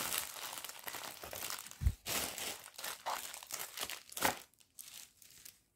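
Small plastic bag crinkling as it is handled and round diamond painting beads are put back into it, with a soft thump about two seconds in and a sharp click a little after four seconds.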